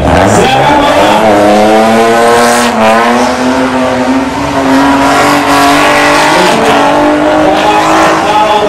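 A drift car's engine revs up sharply in the first second or so and is then held at high revs, wavering slightly and creeping higher near the end, with tyre squeal underneath as the car drifts.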